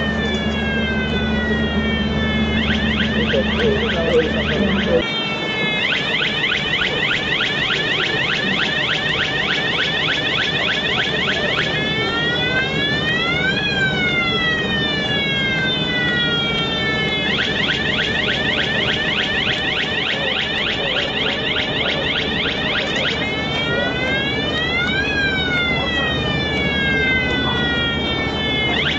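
Electronic warning siren on a bridge-girder launching gantry, cycling between a slow rising-and-falling wail and a steady fast-pulsing tone. A low machine hum underneath stops about five seconds in.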